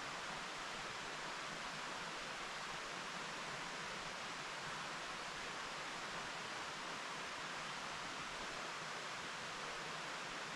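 Mountain stream flowing steadily over rocks, an even hiss of running water with no breaks.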